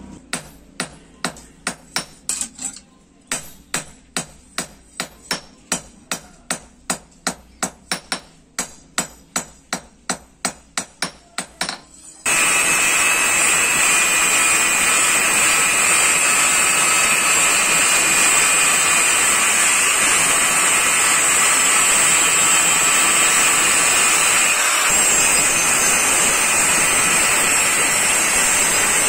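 A hand hammer strikes red-hot steel on a small steel anvil, forging a billhook blade, in a steady run of sharp blows about two or three a second. About twelve seconds in, this cuts to an angle grinder with an abrasive disc grinding the billhook's blade, a loud, steady high whine with grinding hiss.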